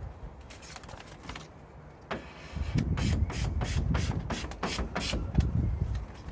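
Plastic card used as a scraper, swept repeatedly over a self-adhesive vinyl decal on a van panel to press it down and push the air out: a quick series of rubbing strokes, about three a second, starting about two seconds in, over a low rumble.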